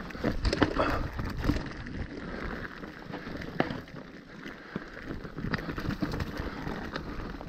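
Mountain bike rolling fast down a rocky trail: tyres crunching over stones and the bike rattling, with many irregular knocks.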